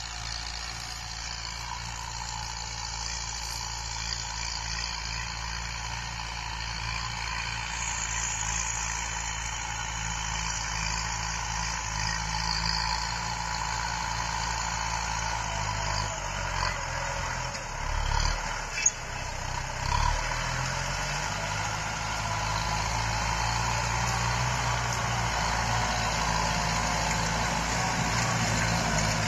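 Farm tractor's engine running steadily under load as it pulls a disc plough through dry soil, slowly growing louder as it comes closer. A sharp knock sounds a little past the middle.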